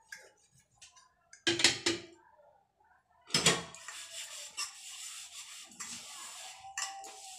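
Steel gas-stove pan-support rings clattering as they are handled and set down, twice, then a steady hiss of washing as they are scrubbed at the sink.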